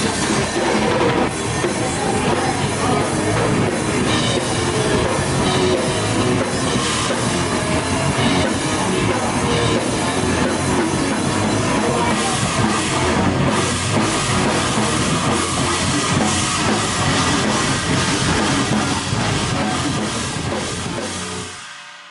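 Live heavy rock band playing loud: drum kit pounding under electric guitar. The music stops near the end.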